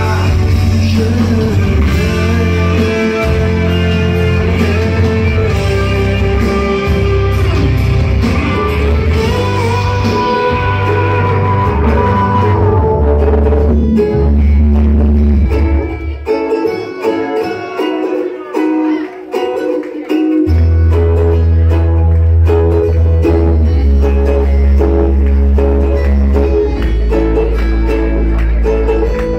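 Recorded music playing loud: an instrumental passage with guitar over a steady bass line. Past the middle, the bass drops out for about four seconds, then comes back in.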